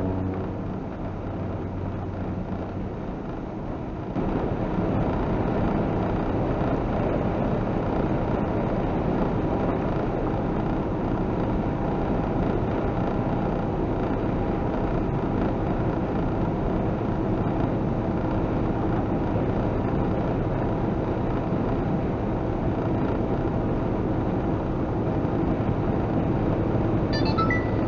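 A semi truck's diesel engine and tyre noise heard from inside the cab at highway speed: a steady drone that steps up in loudness about four seconds in and then holds.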